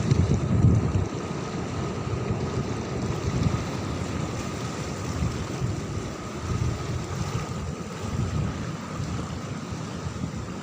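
Surf washing on a beach with wind rumbling on the microphone, in uneven low surges, the strongest about half a second in. A faint steady high tone runs underneath.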